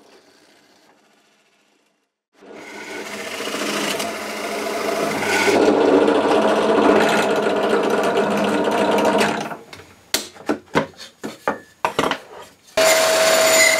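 Benchtop drill press running with a Forstner bit boring into a wooden board: a steady motor sound with the bit cutting, starting about two seconds in and stopping after about seven seconds. A run of sharp clicks and knocks follows, and near the end a steady hum with a clear tone starts up.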